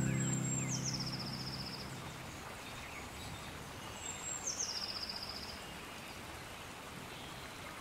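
A bird calls twice with a high, thin whistle that drops into a fast buzzy trill, over a steady hiss of natural background noise. A sustained music chord dies away in the first two seconds.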